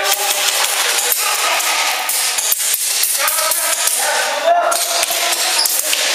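Airsoft guns firing in rapid bursts: a dense, continuous clatter of sharp clicking shots.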